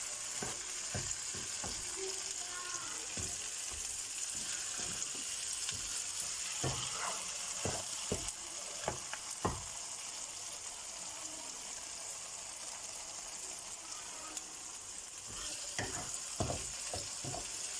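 Okra and onion masala sizzling in hot oil in a pan over high heat, which keeps the okra from turning slimy. Throughout there is a steady sizzling hiss, and a spatula scrapes and knocks against the pan as it is stirred, in clusters about halfway through and again near the end.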